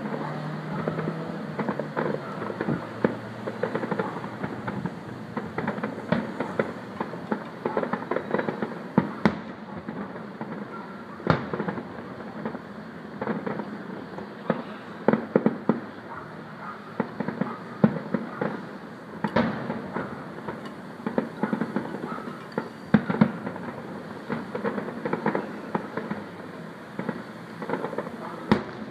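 Fireworks display going off: an irregular run of bangs and crackles, with a handful of sharper, louder reports standing out.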